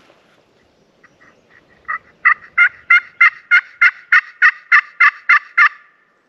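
A turkey call run as a hen yelp sequence. About a dozen evenly spaced yelps, roughly three a second, start soft and turn loud about two seconds in, then stop abruptly.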